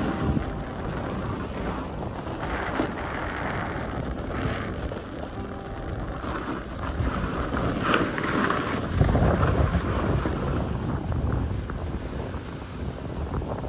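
Wind rushing over the microphone of a camera carried fast down a groomed ski slope, with the hiss and scrape of edges carving the snow at several turns. The wind buffeting gets louder about nine seconds in.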